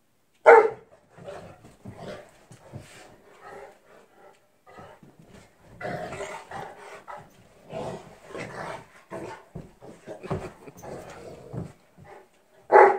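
Two Newfoundland dogs play-fighting: a loud bark about half a second in and another near the end, with growls and scuffling between them.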